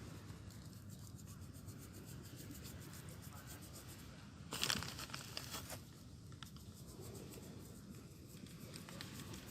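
A brief crinkling, scratchy rustle about halfway through, over steady low background noise.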